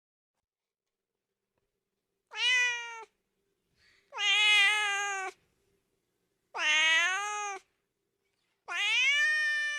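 Domestic cat meowing four times, each meow about a second long and spaced roughly two seconds apart.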